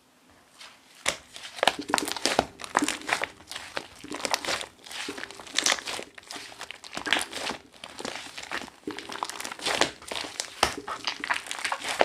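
Slime mixed with shaving foam being squished and stretched by hand: dense, irregular crackling and popping that starts about a second in.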